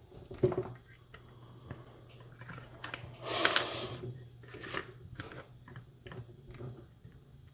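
Light metal clicks and rustles of lock picks being handled at the workbench, with a louder scraping rustle about three seconds in. A faint steady hum runs underneath.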